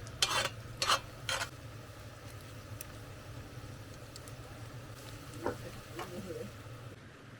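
Chorizo and eggs frying in a cast iron pan. A utensil scrapes and stirs the pan in three quick strokes in the first second and a half, and then the pan goes on with a steady sizzle.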